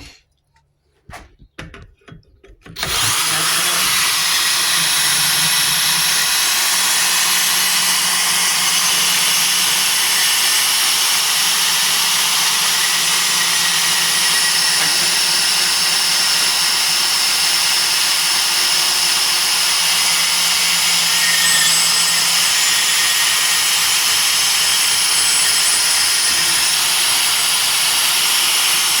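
Hercules 20V cordless compact band saw cutting through thick steel (about 1/4 inch, part of a hitch receiver): a few light clicks, then about three seconds in the saw starts and runs steadily under load with a hissing, grinding blade noise until it stops at the very end.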